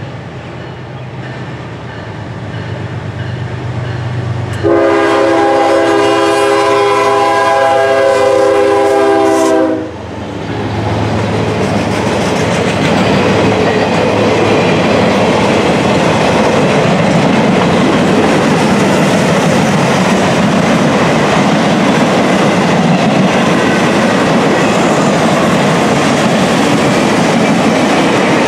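Norfolk Southern GE ES40DC diesel locomotive approaching with a growing engine rumble, then sounding one long horn blast of about five seconds. After the horn, the work rail train's long string of rail-rack cars rolls past with a steady, loud wheel-on-rail noise.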